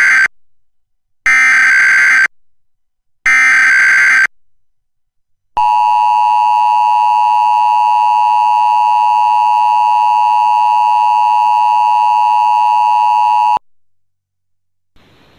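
Emergency Alert System tones on a TV broadcast. First the tail of one SAME digital header burst and then two more, each a harsh one-second data screech about two seconds apart. Then comes the steady two-tone attention signal (853 and 960 Hz), held for about eight seconds and cut off abruptly; together they open a national EAS test message.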